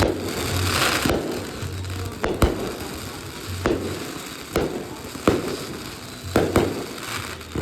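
Fireworks show: a hissing crackle for about the first second, then about seven sharp bangs of bursting shells spread over the rest, some coming in quick pairs.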